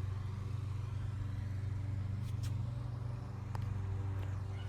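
Steady low motor hum with a fine, rapid pulse and a few faint overtones; no distinct event stands out.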